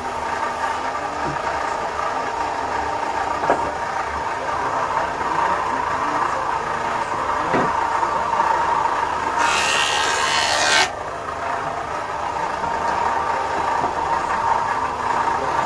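Woodworking machinery running steadily, with a louder hissing rush for about a second and a half near the middle and a few light knocks.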